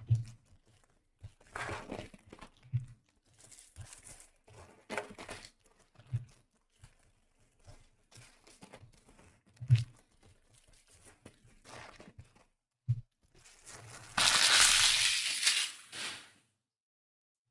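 Packaging of 2025 Optic football blaster boxes being opened: card pack wrappers crinkling and tearing, with soft knocks on the table. A louder, longer crinkle comes near the end.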